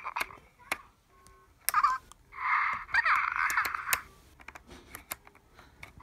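Hatchimals twins toys chattering in high-pitched electronic voices through their small speakers, in short bursts. The longest burst comes about two to four seconds in, with brief beep-like tones and light clicks between the bursts.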